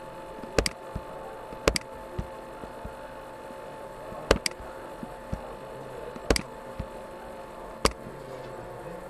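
Computer mouse clicking, sharp clicks mostly in quick pairs, about five times a second or two apart, over a steady electrical hum.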